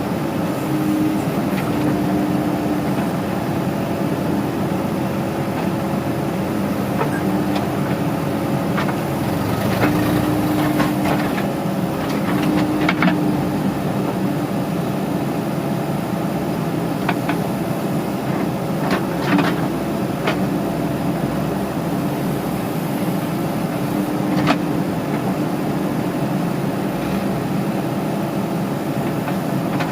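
Diesel engine of a JCB 3DX backhoe loader running steadily while it digs and loads mud, its pitch rising at times, with scattered knocks and clanks from about a quarter of the way in.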